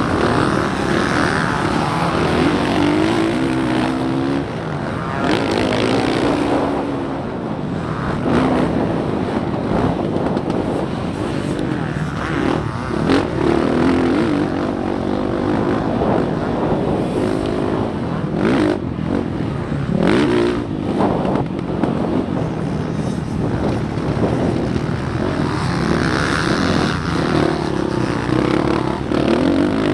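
Motocross bike engine revving hard at race pace, heard close from the rider's own camera. The pitch climbs and drops back again and again as the rider accelerates, shifts and rolls off for turns on a rough dirt track.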